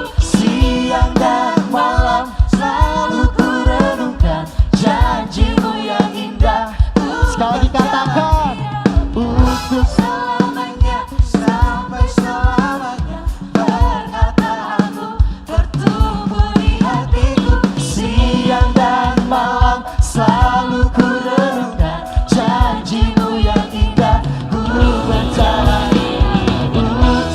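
Live worship music: a church band with voices singing together over a steady drum beat.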